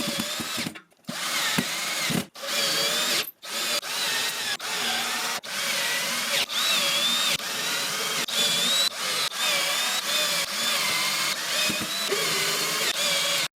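Power drill driving screws into the battery rack's cross-beam brackets. The motor whines with a wavering pitch, stopping briefly several times in the first few seconds, then running in longer stretches with short dips.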